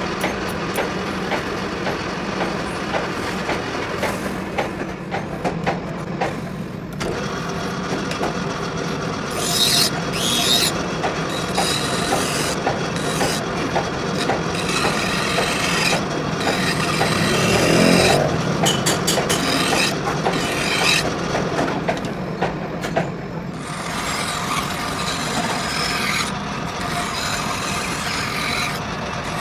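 Metal lathe running with a steady hum while a flat hand file rasps against the spinning cast iron workpiece.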